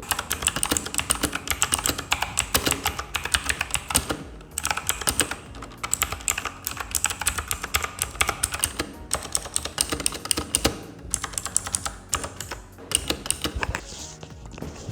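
Typing on a mechanical keyboard with Outemu Blue clicky switches: a fast, continuous run of clicking keystrokes, with short pauses a few times.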